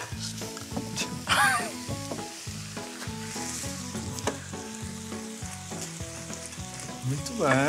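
Food sizzling and frying in pans on a hob, stirred with a wooden spoon, a steady hiss throughout.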